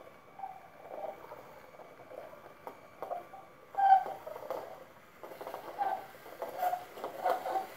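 Lego Technic six-legged walker stepping across a wooden floor: its motor-driven plastic gears and leg linkages clatter, with short squeaky tones throughout, the loudest about four seconds in, and sharper clicking from about five seconds in.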